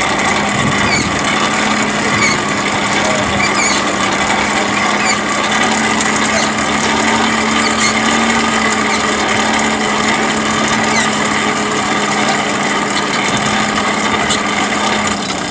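Electric grinder running steadily with a constant hum while a forged blade is cleaned up; the motor stops shortly before the end.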